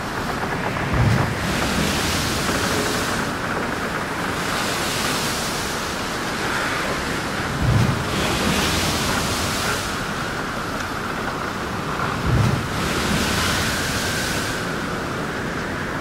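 Rushing, surf-like noise that swells and fades every few seconds, with a faint wavering tone beneath it and three dull low thuds, the loudest moments. It sounds like an ambient noise soundscape laid over the images.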